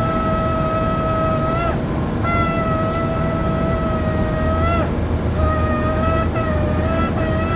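A ram's-horn shofar being blown: two long, steady blasts, each bending upward in pitch as it ends, then a run of shorter broken blasts.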